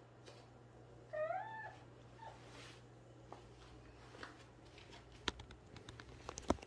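A kitten mews once, a short call that rises and falls in pitch about a second in, with a faint second chirp just after. Near the end come several light clicks and taps.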